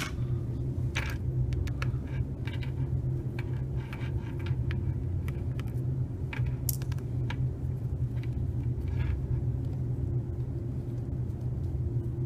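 Scattered small clicks and taps as a small Phillips screwdriver and fingers work on a smartphone's opened back housing on a table, over a steady low hum.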